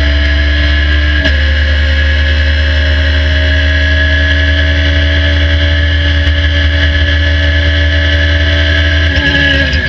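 Radical SR3 RS's motorcycle-derived four-cylinder engine at high revs under full throttle, heard from the cockpit. A quick upshift about a second in, then a steady high note as it pulls; near the end the throttle comes off and the note drops as the car slows for a corner.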